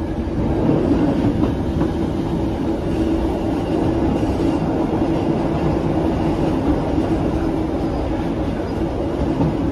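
Passenger train running on its rails, heard from inside the carriage: a steady rumble of wheels and running gear with a constant hum beneath it.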